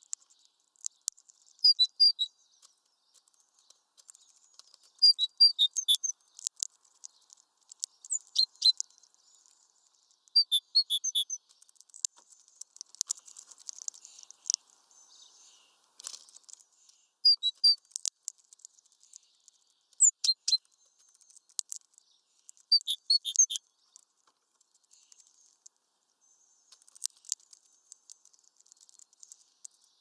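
Small songbirds at a seed feeder: short clusters of high, thin chirps every few seconds, mixed with light taps and pattering as they land on the twig perches and peck at the mesh feeder.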